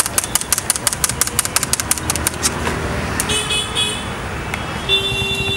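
A knife chopping cucumber rapidly against the table, about seven quick cuts a second, stops after two and a half seconds. Then a vehicle horn toots three times briefly and gives one longer honk near the end, over steady street traffic noise.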